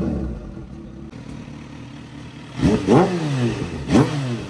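Kawasaki ZH2's supercharged inline-four engine idling, then blipped twice, the revs jumping up and falling back each time.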